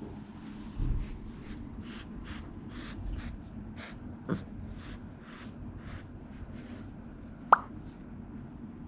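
A one-month-old tiger cub nosing at and pushing under a sheer curtain on carpet. It makes a run of soft, short rustles, about two or three a second, with a low thump about a second in and one sharp click near the end.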